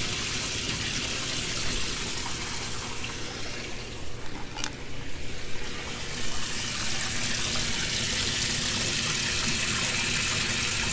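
Water running steadily into an aquaponics flood-and-drain grow bed as it fills toward the standpipe height. The rush dips and wavers briefly about halfway through, with a single click.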